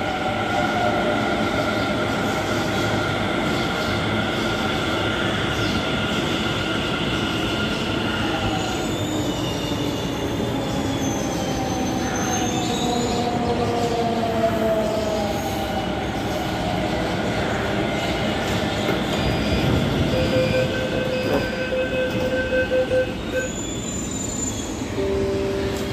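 Delhi Metro Pink Line train at the platform, its electric traction motors whining in several tones that fall in pitch over roughly ten seconds as it slows, over steady rumble. About twenty seconds in comes a run of short electronic beeps on several pitches, the door warning as the doors open for boarding.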